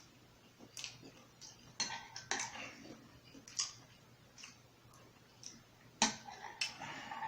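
Close-up eating sounds: wet mouth clicks and smacks from chewing, with a spoon clinking against a bowl of chicken tortilla soup. Irregular short clicks throughout, loudest about two seconds in and again about six seconds in.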